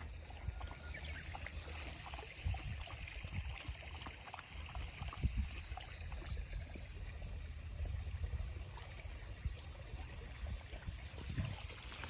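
A shallow stream babbling, a steady watery hiss, with a low rumble underneath and a few small ticks.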